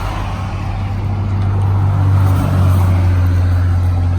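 Heavy truck diesel engine idling, a steady low hum that grows louder about halfway through.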